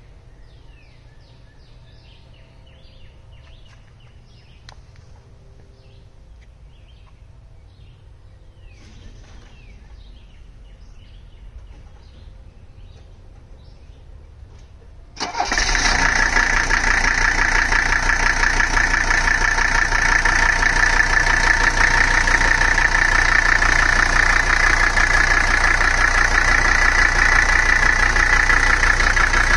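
Faint bird chirps for about the first half. Then, about halfway in, the turbocharged 3.0-litre OM617 inline-five diesel of a 1983 Mercedes 300D comes in suddenly, loud, and runs steadily.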